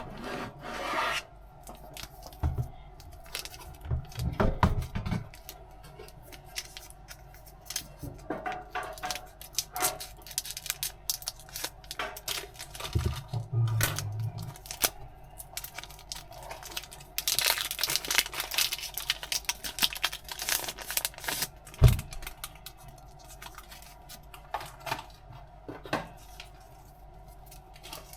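Hands handling packaging: rubbing, scraping and tearing of wrapping and card, with scattered clicks and taps and one sharp knock a little after the middle.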